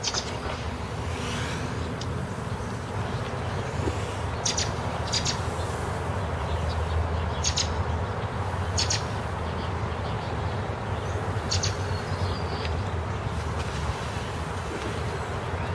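Street ambience: a steady low traffic rumble, with short bird chirps about five times.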